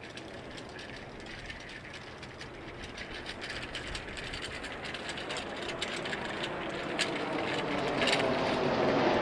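Boeing 767 jet engines at takeoff power, a distant rushing roar that swells steadily louder as the airliner lifts off and climbs. A few sharp clicks stand out near the end.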